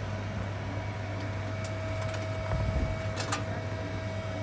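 Excavator motor running steadily, a low hum with a steady high whine over it, and a few light clicks about three seconds in.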